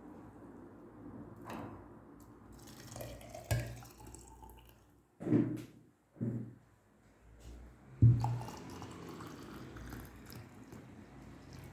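Water poured and dripping into a bottle of remedy ingredients, with a few sharp knocks.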